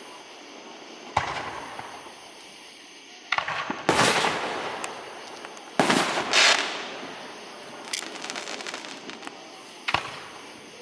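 Fireworks bursting overhead: about half a dozen sudden loud bangs, each fading out over a second or two. One burst about eight seconds in is followed by a stretch of crackling.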